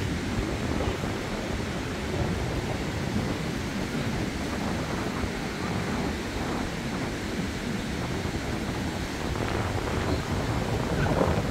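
Surf from a rough sea breaking and washing up the beach, heard as a steady noise, with wind buffeting the microphone.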